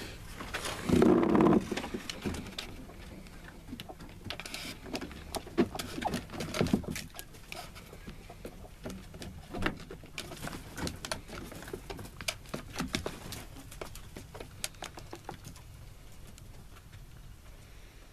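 Chickens in a coop: a short, loud squawk about a second in, then scattered light taps and scratches as the birds move about.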